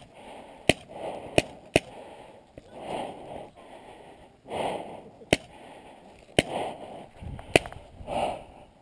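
Paintball markers firing: about six sharp single pops at uneven gaps, with soft, hard breathing between them.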